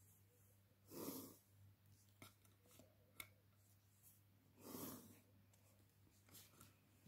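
Near silence: quiet room tone with two soft rushing sounds, about a second in and just before five seconds, and a few faint ticks.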